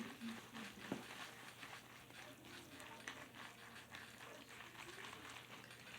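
Faint, irregular clicks and soft squishing of a utensil stirring sauced instant noodles in their container, over a steady low hum.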